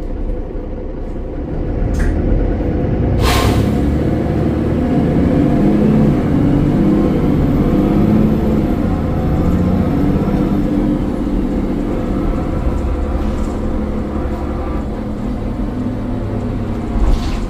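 A Mercedes-Benz Citaro bus's OM906 6.4-litre diesel engine running thrashy, getting louder about two seconds in and staying under load. A short, sharp hiss of air cuts across it about three seconds in.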